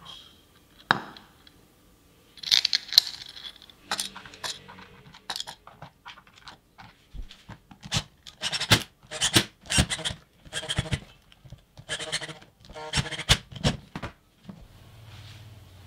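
Black plastic battery pack case being closed up: a sharp click as the halves go together, then small screws driven into the case with a screwdriver, heard as a run of short scraping, clicking bursts.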